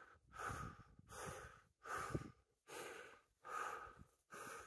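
Faint, heavy, rhythmic breathing of a hiker climbing a steep slope, one breath in or out about every three-quarters of a second: a sign of hard exertion on the ascent.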